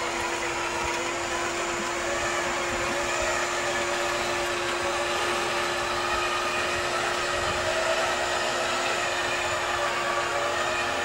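UAZ off-roader's engine idling steadily with a constant hum, the vehicle standing stuck in muddy water.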